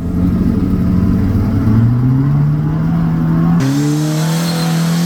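Off-road vehicle engine running under load, its pitch climbing steadily for about three and a half seconds; then an abrupt change to a steady engine note.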